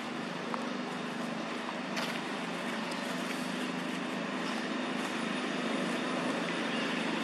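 Steady background hum and hiss, with a faint click about two seconds in.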